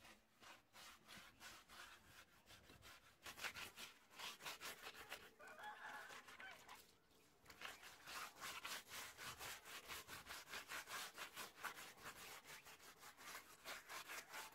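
A bare hand rubbing dry red powder into a rough cement wall: a fast run of short scratchy strokes, several a second, with two brief pauses.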